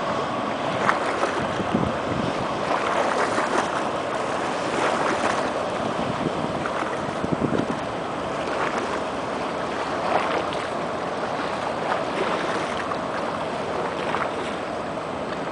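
Motor yacht running past on a river, heard as a steady rush of engine and wake, mixed with uneven water splashing and wind on the microphone.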